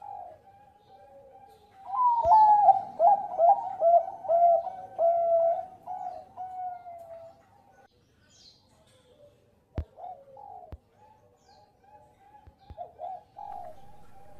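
Bangkok-strain zebra dove (perkutut) cooing: a loud, rapid run of rolling coo notes lasting about five seconds, then quieter, scattered coos. A couple of sharp clicks come about ten seconds in.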